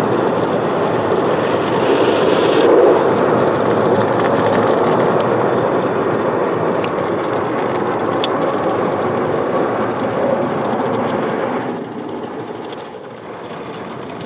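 Automatic car wash heard from inside the car: water spray, soap foam and brushes spattering and scrubbing over the windshield and body, a dense rushing noise that gets quieter about twelve seconds in.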